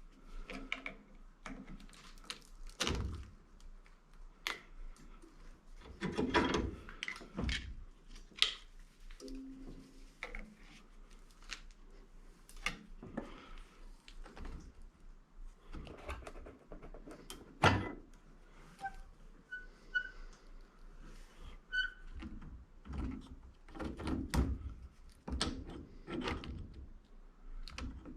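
Hand-tool work on an electric motor: irregular metal clicks, knocks and scraping as a flat screwdriver pries at its parts, with a few louder knocks.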